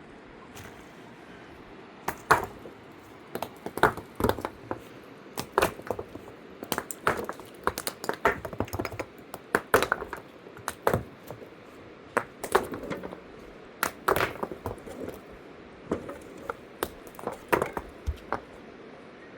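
Irregular light knocks and clinks, several a second at times, like hard objects or utensils being handled.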